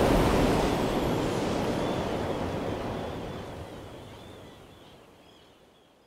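Glacier calving: ice collapsing from the glacier face into the sea, a wide rumble and wash of noise that fades away steadily. Faint calls of seabirds come through from about two seconds in.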